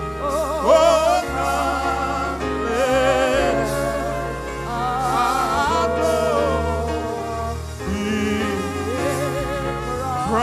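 Gospel worship music: singing with strong vibrato over held chords and a sustained bass line.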